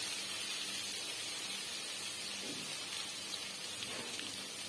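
Minced garlic and vinegar sizzling steadily in hot ghee in a pot, an even hiss with a faint low hum underneath.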